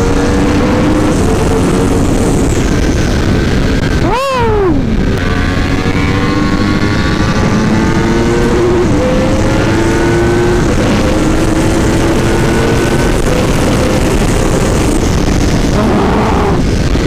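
2018 Yamaha R1's crossplane inline-four running hard at high speed, its pitch climbing as it pulls through the revs, under heavy wind rush. About four seconds in there is a quick gear change, a brief dip with a sharp rise and fall in pitch.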